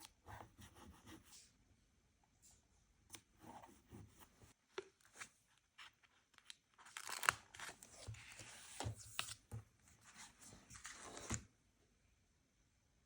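Paper being torn and handled in short, scattered rips and rustles, denser over a few seconds in the second half, then stopping a little before the end.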